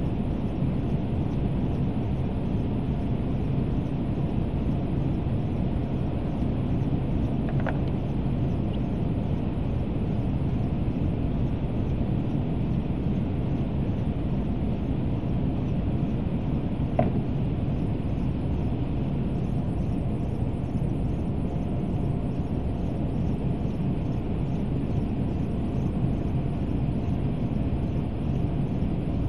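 Steady low rumble of running machinery with a faint steady hum. Two faint ticks come about 8 and 17 seconds in.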